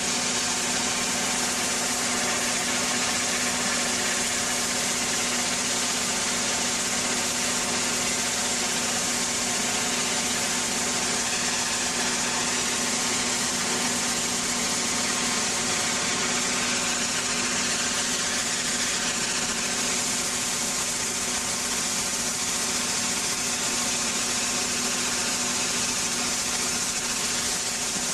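Ultra-high-pressure water jet (hydroblasting at 1000–2500 bar) stripping paint off a steel plate: a steady, loud hiss of the jet over an even machine drone.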